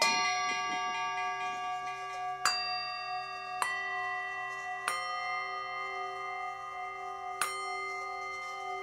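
Background music of tuned metal bells, struck five times at uneven intervals. Each strike rings on, so several pitches overlap in a sustained chord.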